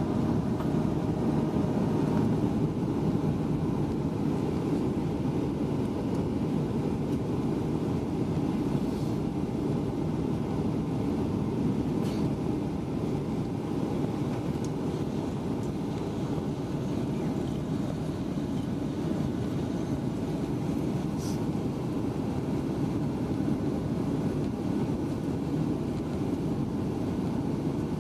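Steady cabin roar inside a Boeing 737-800 airliner: engine and airflow noise, low and even throughout, with a few faint clicks.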